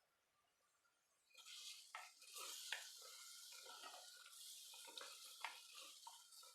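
Faint sizzle of thick pork gravy simmering in a clay pot, starting about a second and a half in, with soft scrapes and clicks of a spoon stirring it.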